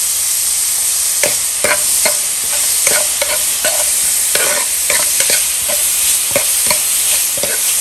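Chopped onions, garlic and chillies sizzling in hot oil in a coated frying pan as they sauté. From about a second in, a spatula stirs them, with quick irregular scrapes and taps on the pan several times a second over the steady sizzle.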